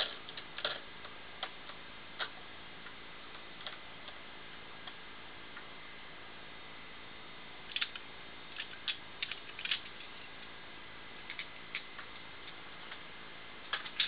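Open hard disk drive's head actuator seeking, making irregular short clicks in loose clusters over a faint steady hiss while the drive with replaced platters is being read.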